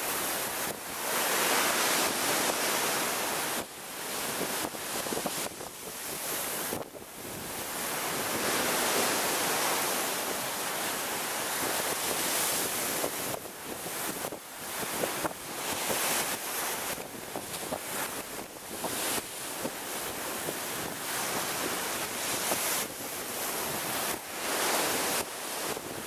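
Rough sea waves surging up and crashing against a stepped concrete sea wall. A dense, continuous rush of breaking surf that swells and falls back every few seconds as each wave hits.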